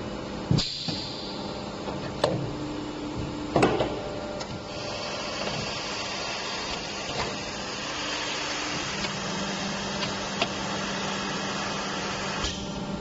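Injection blow molding machine running: a steady hum with a few sharp clacks in the first four seconds, then a hiss that sets in about five seconds in.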